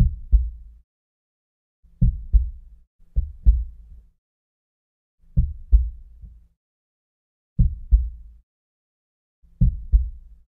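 Heartbeat sound effect: six double 'lub-dub' thumps, deep and short, spaced about one and a half to two seconds apart with silence between them.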